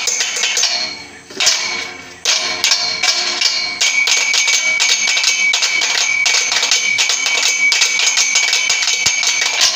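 Improvised drumming: several sticks beating fast on a metal railing and a plastic chair, a dense rhythm with a steady metallic ring over it. It thins out for about a second near the start, then comes back full.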